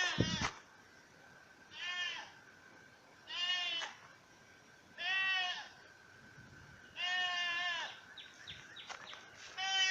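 A goat bleating repeatedly: five short wavering calls a second or two apart, the fourth a little longer.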